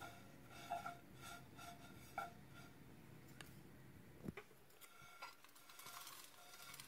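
Faint dry scratching of a wooden utensil stirring dry-roasted shredded vegetarian meat floss in a nonstick pan, with a few light clicks in the second half. Near the end there is a soft rustle as the floss slides out of the pan onto a plate. The dry scraping sound in the pan is the sign that the floss has roasted dry.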